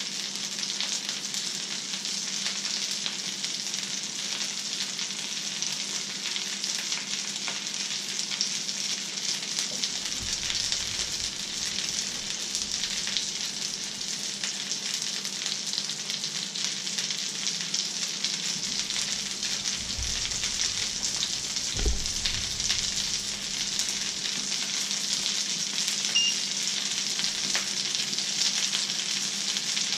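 Fish fingers and egg frying in a pan, a steady sizzle. A low steady hum runs underneath, and a few dull low thuds come past the middle.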